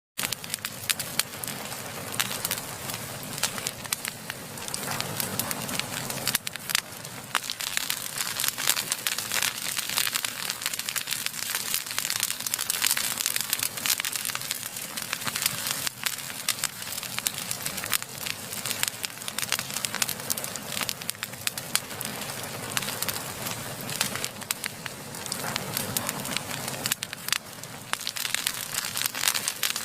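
Fireplace fire crackling: many irregular sharp pops over a steady hiss.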